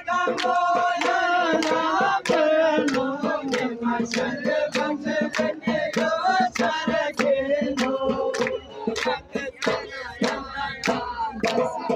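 A group of men singing together in unison, with steady rhythmic hand clapping beating time, a couple of claps a second.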